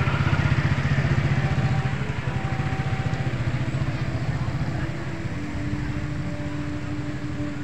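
Road traffic: a motor vehicle engine running close by, with motorcycles and cars passing. It is loudest in the first couple of seconds and eases off after about five seconds.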